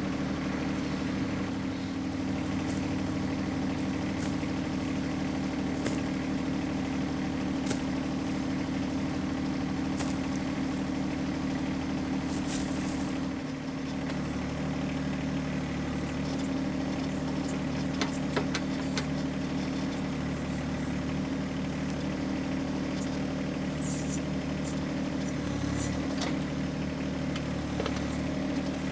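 John Deere 1025R compact tractor's three-cylinder diesel engine running steadily while it works the 260B backhoe, with scattered clicks and knocks over it.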